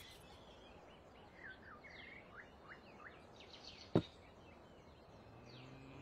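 Faint background of small birds chirping in short, gliding calls, with a single sharp knock about four seconds in. A cow begins a low moo right at the end.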